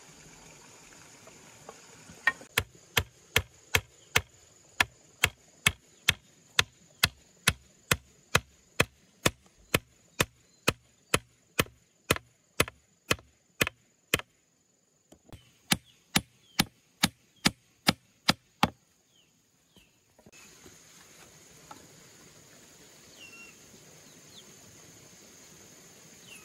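Hammer nailing wooden gate poles together: a steady run of sharp strikes, about two to three a second, with a short pause near the middle, stopping about two-thirds of the way through. Insects buzz steadily in the background.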